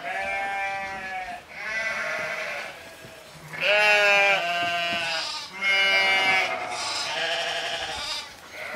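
A voice drawing out a string of long pitched notes, about half a dozen of them, each held for about a second with short breaks between.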